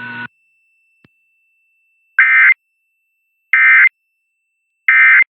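Three short bursts of Emergency Alert System SAME digital data tones, each under half a second, a little over a second apart. These are the end-of-message code that closes an EAS test.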